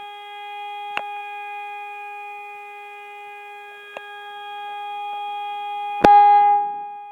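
Hörmann ECN electronic warning siren sounding one steady, unwavering tone, the all-clear signal, its level swelling and dipping a little. Two small clicks and a loud knock about six seconds in cut across the tone.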